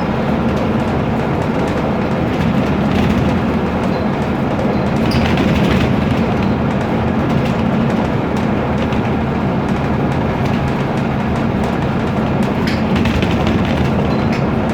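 Inside a BMC Procity bus on the move: the Cummins ISB turbo diesel drones steadily while interior panels and window glass rattle and knock with scattered clicks.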